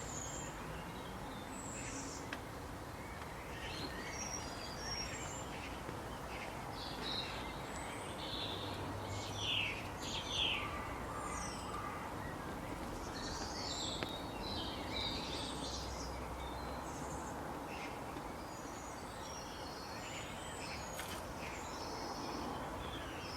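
Wild birds chirping and calling, many short scattered calls over a steady outdoor background hiss, with two louder calls near the middle.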